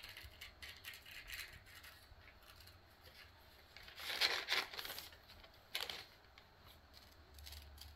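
Paper doily rustling and crinkling as it is handled, with a louder crinkle about four seconds in and a shorter one near six seconds.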